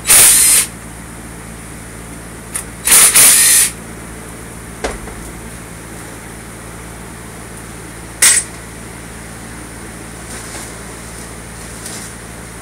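DeWalt cordless impact driver running in short bursts on the bolts of a Honda BYBA transmission case during teardown: about half a second at the start, a longer burst around three seconds in, and a brief one about eight seconds in.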